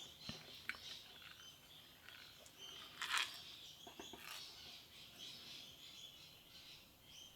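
Faint bird chirps in the background, with a few light clicks and taps of small brass lock pins being handled and set out; one click stands out about three seconds in.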